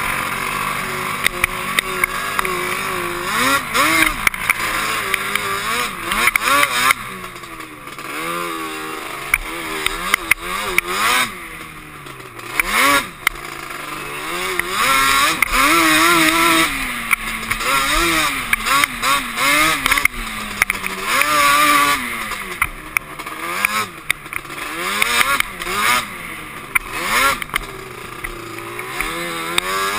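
Yamaha Banshee quad's two-stroke twin engine revving up and down over and over on throttle, with frequent knocks and rattles from the jolting ride over rough ground.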